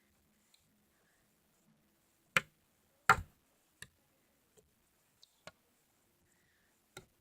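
Homemade glue-and-borax slime being stretched and squeezed, giving off sharp little clicks and pops: two louder ones about two and a half and three seconds in, then a few fainter ones.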